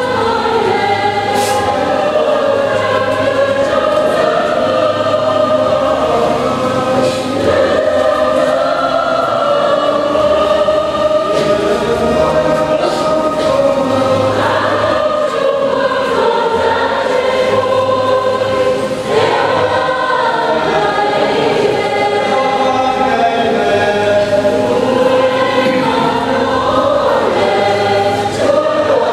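Choir singing a slow hymn with long held notes.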